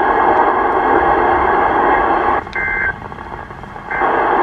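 Steady radio static from an alert receiver. About two and a half seconds in the static drops out for a brief two-tone data burst, typical of Emergency Alert System digital tones closing a message. The static returns about a second later.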